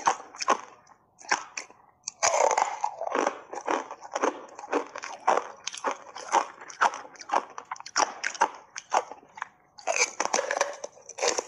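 Thin block ice coated in matcha powder being bitten and chewed: rapid, dense crunching and crackling. There is a short lull about a second in, and heavier bites at about two seconds and again near ten seconds.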